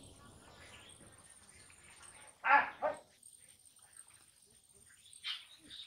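Two short animal calls close together about halfway through, with faint bird chirping.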